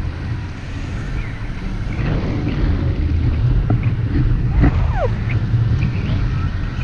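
Airflow buffeting an action camera's microphone in flight under a paraglider, a steady deep rumble, with a brief faint falling whistle about five seconds in.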